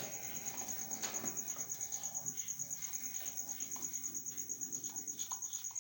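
DCC-chipped model locomotive running on its track under decoder control: a steady, high-pitched pulsing whine with a few faint clicks.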